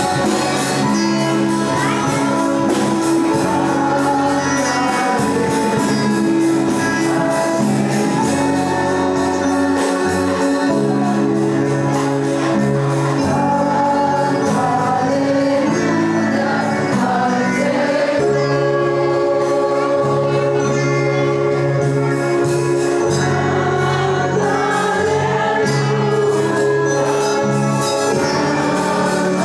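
Christian worship music with voices singing over sustained low notes and a steady high percussion beat.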